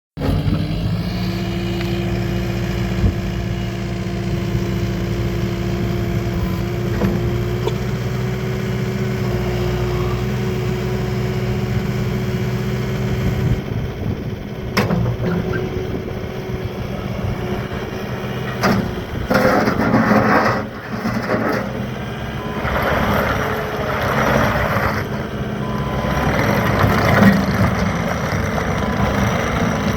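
Takeuchi TL8 tracked skid steer loader's diesel engine idling steadily. About halfway through, the sound turns rougher, with several louder surges and a few sharp clanks.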